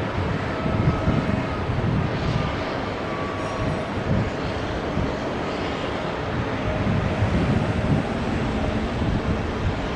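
Boeing 777-300ER accelerating on its takeoff roll, its two GE90-115B jet engines at takeoff thrust: a steady, deep, rumbling jet noise.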